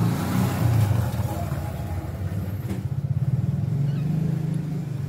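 A steady low mechanical hum, like a motor running at a constant speed.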